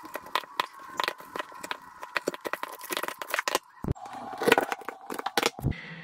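Heavy cable cutters biting through the thick insulated charging cable of a Tesla Mobile Connector: a run of crackling, crunching snaps as the insulation and copper strands give way, densest about four and a half seconds in.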